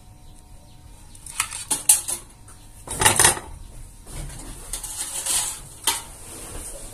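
Clatter of a printed circuit board and tools being handled and set down on a hard workbench: a few sharp clacks about a second and a half in, a louder clatter around three seconds in, then lighter rattling and a last click near the end.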